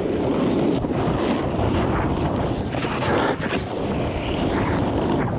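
Wind rushing over a GoPro's microphone while snowboarding at speed, mixed with the snowboard's edges scraping across groomed snow through turns, with a louder scrape around the middle.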